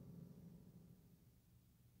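Near silence, with the last of a low, deep sound fading away in the first second.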